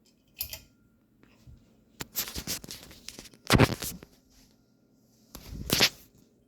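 Objects being handled: several short bursts of scraping and rustling, the loudest just past the middle.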